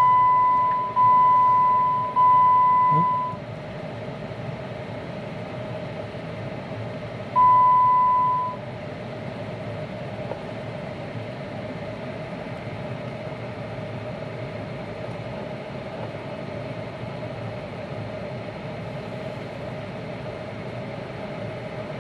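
Vehicle warning chime dinging, three times about a second apart, then once more about seven seconds in. Underneath, the parked Jeep Wrangler JK hums steadily as it idles.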